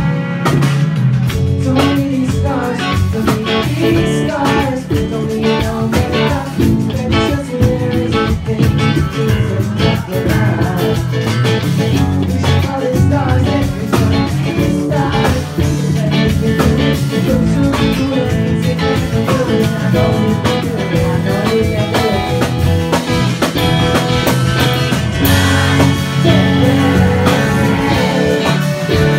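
Live rock song played loud on electric guitar, with a male voice singing.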